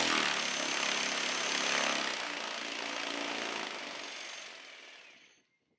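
A motor-driven rope rig on a garage door whirring, the noise dying away steadily over about five seconds until it is gone.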